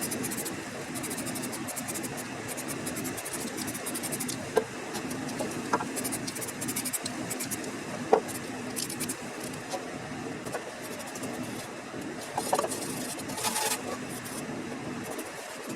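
Hand-tool work on metal: a long run of fine, rapid scraping, with a few light metal clinks, over a low steady hum.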